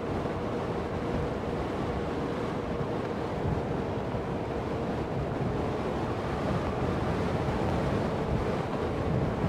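Wind rushing over an action camera's microphone while riding an electric unicycle at speed, steady throughout, with a faint steady whine underneath.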